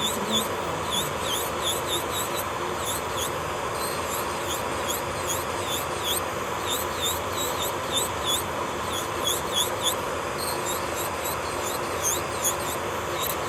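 Electric nail drill running steadily, with many short high squeaky chirps a few times a second over it.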